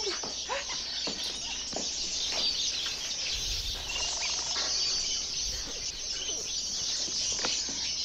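Dense, steady chatter of many caged songbirds in a pet shop, chirping and twittering all at once.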